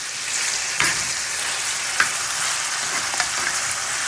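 Mixed vegetables sizzling steadily in a hot frying pan, with a metal spoon clicking against the pan three times as they are stirred.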